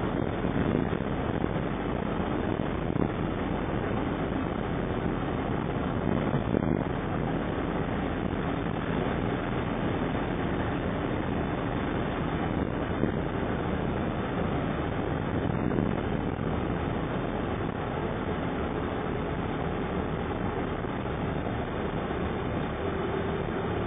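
Steady cabin noise of an ambulance driving along a snow-covered road: engine and tyre rumble heard from inside, even throughout.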